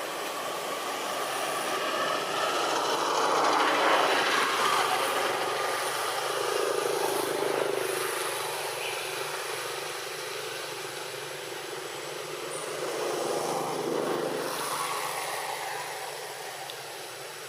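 Passing road traffic: a vehicle's noise swells up and fades away about four seconds in, and another pass follows around fourteen seconds in, over a steady outdoor hiss.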